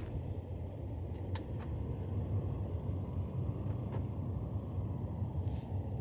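Steady low rumble, with a few faint clicks about a second and a half in and again around four seconds in.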